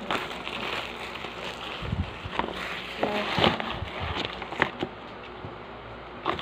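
A wall clock's cardboard box and packaging being handled and opened: rustling and scraping with scattered knocks, busiest about halfway through.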